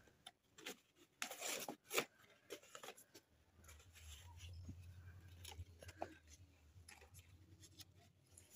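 Faint rustling and tearing of cardboard being ripped into pieces by hand, in short scattered bursts, loudest about one to two seconds in.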